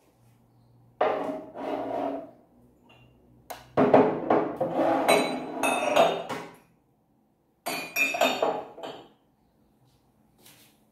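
Ceramic mugs clinking and knocking against each other and the shelf as they are put away in a kitchen cupboard, in three bursts of handling, the middle one longest.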